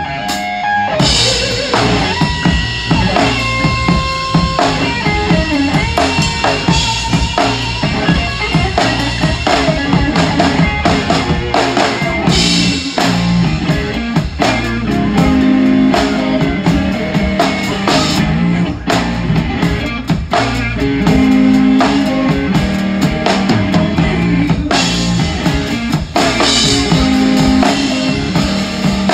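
Rock trio playing live, heard close to the drum kit: a large rock kit with a 26-inch bass drum, crashing cymbals and steady drum hits over distorted electric guitar.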